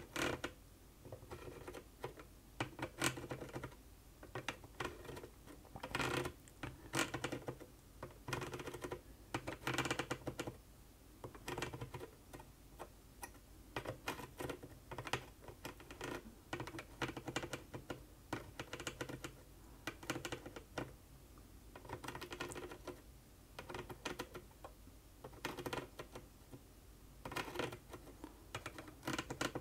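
Soldering iron tip and tweezers tapping and scraping against a surface-mount chip's pins and the circuit board while the solder is heated to desolder a failed chip: light, irregular clicks in small clusters.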